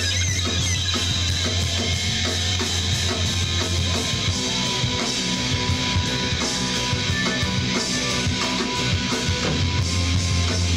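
Live rock band playing loud, steady rock with electric guitar, bass and drum kit. A low bass note is held for the first few seconds and again near the end.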